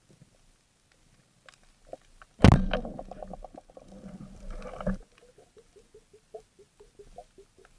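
Underwater sounds during a speargun dive: a sharp knock about two and a half seconds in, then a couple of seconds of rapid rattling and bubbling that cuts off suddenly, with faint clicking before and after.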